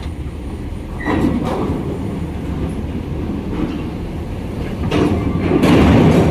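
Mercedes-Benz coach's diesel engine running at low speed as it rolls up a steel ferry loading ramp, with louder clanks and rattles about a second in and again near the end as its wheels cross the ramp plates.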